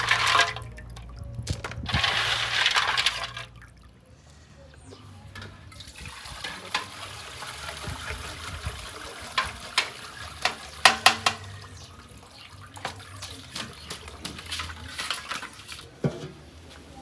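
Liquid splashing and pouring for about three seconds, then a quieter stretch of scattered clicks and knocks, the loudest a quick cluster about eleven seconds in.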